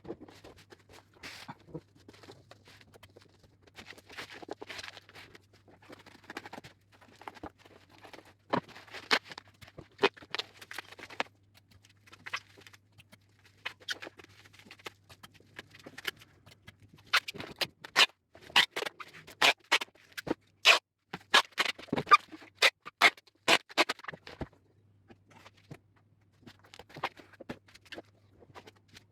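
Parcel being wrapped by hand: rustling and crinkling of the wrapping, then, starting about halfway through, a quick run of short, sharp rips as packing tape is pulled off the roll and torn.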